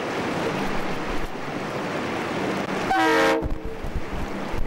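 A 4WD MAN off-road truck driving over loose gravel, its engine and tyres making a steady rumbling noise, with a short horn blast of several tones together about three seconds in.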